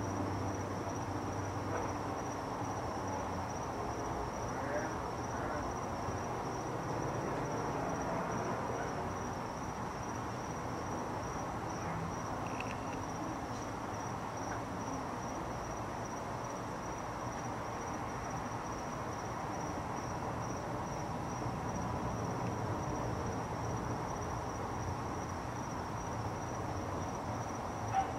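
Steady high-pitched insect trilling, typical of crickets at night, over a low steady rumble of background noise, with one brief click near the end.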